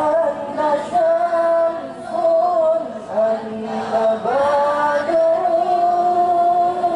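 A man singing solo into a microphone over a sound system, holding long notes with slow ornamented bends and brief breaks between phrases.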